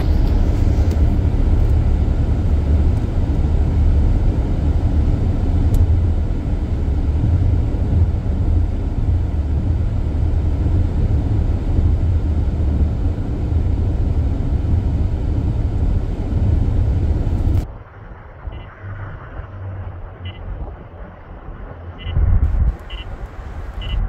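Car riding at highway speed, heard from inside the cabin: a loud, steady low rumble of road and wind noise that cuts off sharply about two-thirds of the way through, leaving a much quieter ride with a brief louder burst near the end.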